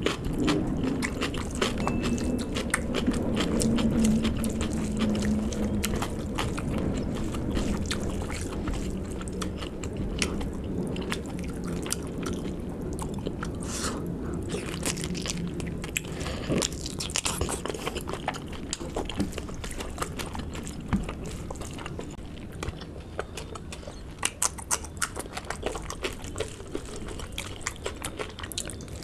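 Close-miked chewing and biting of a person eating a meal of pork curry with rice: a steady run of small clicks and smacks from the mouth throughout.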